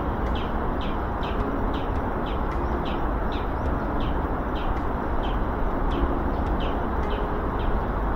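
A bird calling over and over, short falling chirps about twice a second, over a steady rushing noise.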